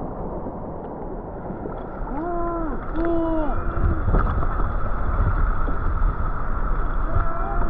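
Galapagos sea lions calling: two drawn-out pitched calls about half a second each, around two and three seconds in, and another starting right at the end, over a steady wash of water and wind noise with a low rumble from about halfway.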